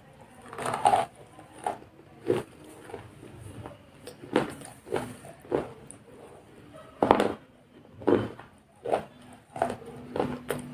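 A series of irregular knocks and clinks, about a dozen short sharp hits, some with a brief ring.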